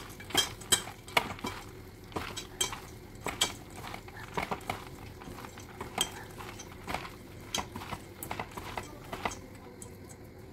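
A hand rubbing and stirring soaked dal in a stainless steel bowl: the wet grains and fingers clatter against the metal in irregular sharp clicks and rattles, which die away a second before the end.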